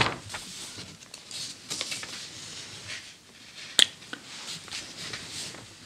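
Pages of a vintage 1940 magazine being turned by hand: a crisp snap as the page flips over, then soft paper rustling and sliding as it is settled flat, with a sharp click about four seconds in.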